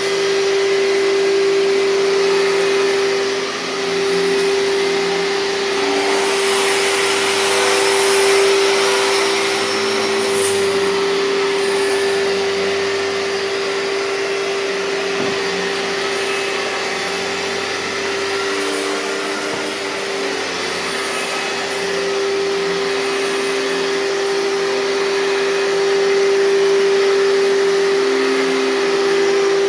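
Hoover TurboPower 5000 canister vacuum running, loud and steady, with a constant high whine over the rush of air. The rush grows louder for a few seconds about six seconds in.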